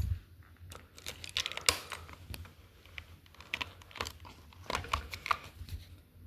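Hands handling equipment: scattered clicks, taps and short rustles, with a sharper click about two seconds in.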